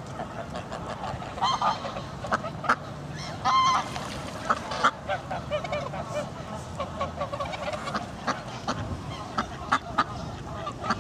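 Geese honking, many short calls overlapping one another in quick succession.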